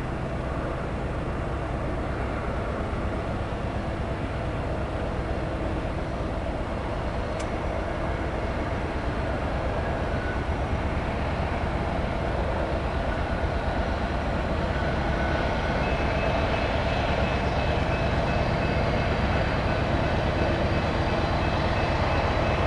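BNSF freight train rumbling, growing steadily louder, with a thin high steady tone joining about two-thirds of the way in.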